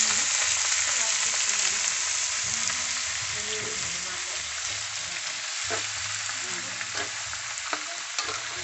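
Snails in their shells sizzling in hot oil in a pan, the sizzle slowly dying down. A few sharp clicks come in the second half as a spoon stirs the shells.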